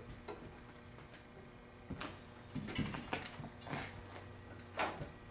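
Metal clicks and knocks from a screen-printing press as the screen frame is unclamped and taken off the pallet. There are several, the loudest near the end.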